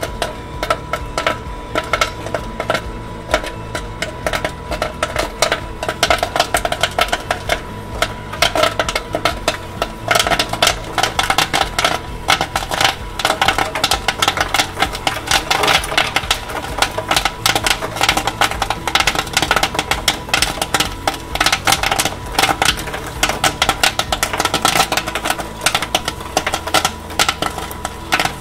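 Mushroom popcorn kernels popping rapidly and continuously in a hot-oil kettle popcorn popper, a dense crackle of many pops a second at full pop, over the steady hum of the kettle's stirring motor.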